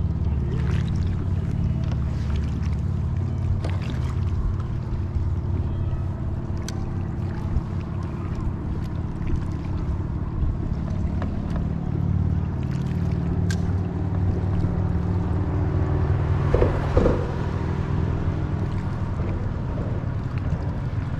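A low, steady engine drone runs throughout, shifting slightly in pitch a few times, with scattered small clicks and knocks.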